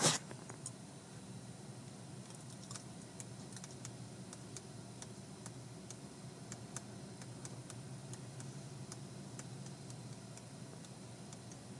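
Steady low hum heard from inside a car's cabin, with scattered light ticks and clicks throughout.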